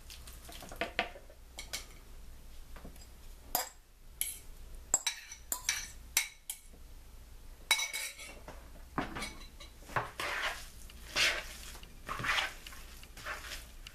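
A utensil clinking and scraping against a mixing bowl as sautéed vegetables are added to a salmon patty mixture and stirred in. Sharp clinks come in the first half, then a run of longer scraping strokes about once a second near the end.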